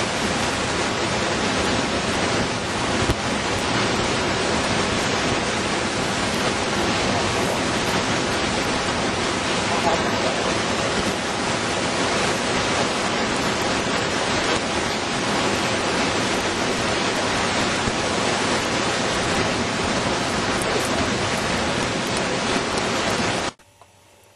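Steady, loud rushing noise with no clear pitch, cutting off abruptly near the end.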